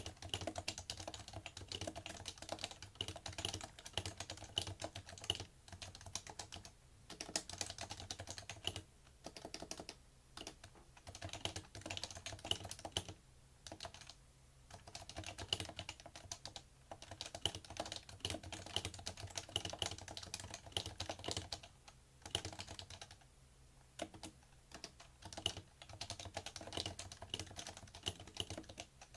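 Steady touch-typing on a PFU Happy Hacking Keyboard Professional2 with Topre capacitive switches: quick runs of soft key thocks with brief pauses, the keystrokes carrying into the desk.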